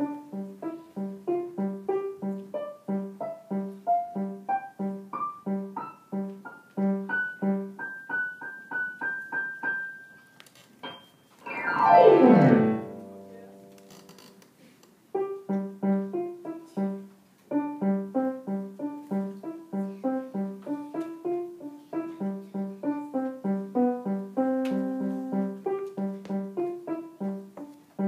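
A child playing a digital piano: a low note repeated steadily under a melody that climbs step by step. About twelve seconds in comes the loudest moment, a fast glissando sweeping down the keys from top to bottom. After a short pause the repeated low note and the melody start again.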